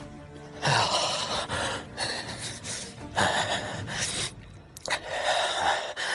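A man breathing hard: four long, heavy, gasping breaths about a second each.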